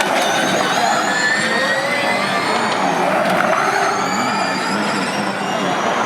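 Formula E electric race cars running past, their electric drivetrains giving a layered high whine that rises slowly in pitch as they accelerate, over steady tyre and road noise.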